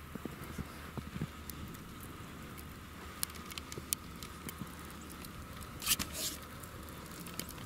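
Boots trudging through deep, powdery snow: soft, irregular crunches and crackles with each step, with one louder rustle about six seconds in.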